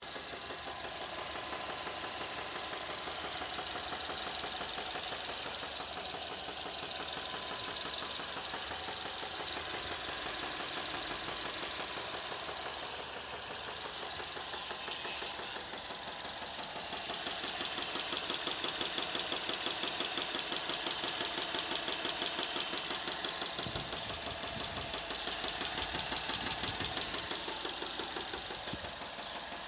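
Subaru EJ25 2.5-litre flat-four engine, warmed up, running with a steady rapid knock. It grows somewhat louder from about halfway through.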